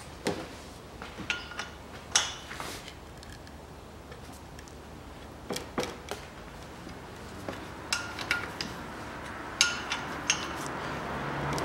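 Scattered metallic clinks and light knocks of hand tools being handled on and around a bare car engine block, a few of them ringing briefly.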